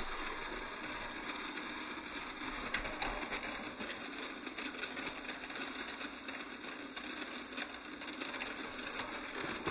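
Electric motor of a battery-powered toy train engine whirring steadily, with small scattered ticks.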